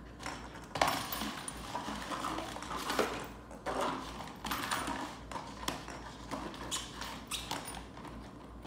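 A plastic ball clattering and knocking around inside a plastic ring-shaped cat track toy as a puppy plays at it, in irregular bursts of taps and rattles.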